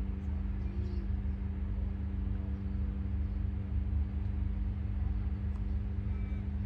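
A steady low machine hum with a constant low rumble underneath.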